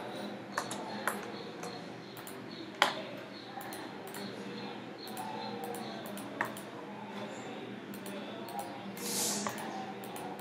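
Computer mouse clicks, a few sharp single clicks with the loudest about three seconds in, over a steady low hum of room and computer noise. A short hiss comes near the end.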